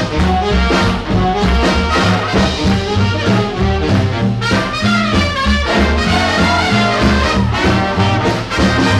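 Swing band music: an instrumental break between sung verses, with a brass section playing over a steady beat.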